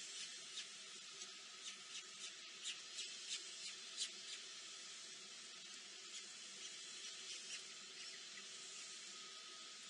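Nestling birds peeping: short, high, faint cheeps, two or three a second at first, thinning out after about four seconds and stopping near seven and a half seconds, over a steady hiss.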